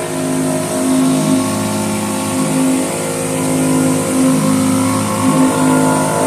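Bauer 2300 PSI brushless electric pressure washer running under load, a steady motor-and-pump hum that steps between two slightly different pitches every second or so. Over it is the hiss of water spraying from the spinner of a surface cleaner.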